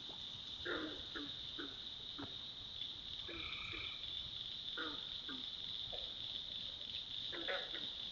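Night swamp chorus: frogs keep up a steady high-pitched trilling, with a scatter of short, low calls over it.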